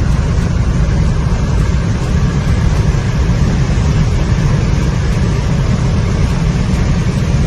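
Steady, loud rumble and hiss of a car moving at speed: road and wind noise, heaviest in the low end, with no rise or fall.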